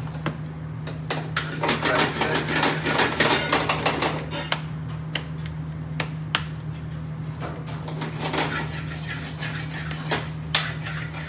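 Cling film crinkling and rustling, with scattered clicks and knocks on a worktop, as raw lamb mince is pressed into burger patties; the crackling is densest for the first few seconds. A steady low hum runs underneath.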